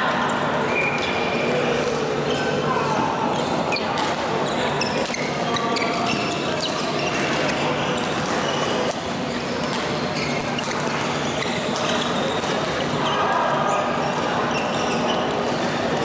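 Echoing din of a busy badminton hall: rackets hitting shuttlecocks on the surrounding courts in many sharp clicks, short high squeaks of shoes on the court mats, and scattered voices.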